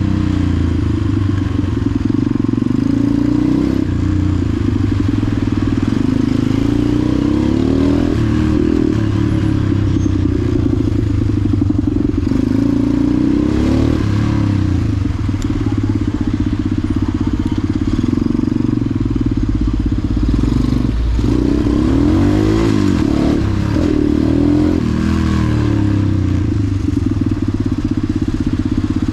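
KTM supermoto's single-cylinder engine running at low speed, with the throttle opened and closed so the revs rise and fall several times, most in the second half.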